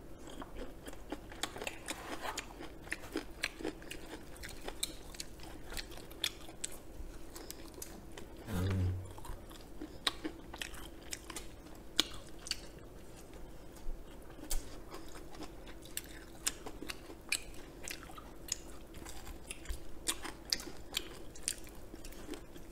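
Close-miked chewing and biting of crunchy fried chicken, with many small crisp crunches and clicks of the batter. A short low hum from a voice comes about nine seconds in.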